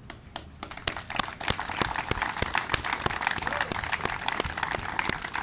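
Audience applauding: many hands clapping at once in a dense, steady patter.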